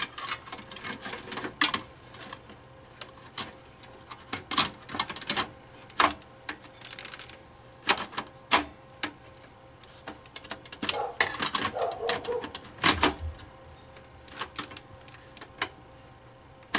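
Irregular clicks and clacks of a hard drive and its mounting bracket being worked onto the rails of a desktop PC's drive bay, with a faint steady hum under them.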